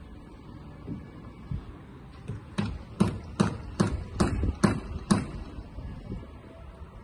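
Hammer blows: about seven sharp knocks roughly two a second, each with a short metallic ring, after a few lighter taps.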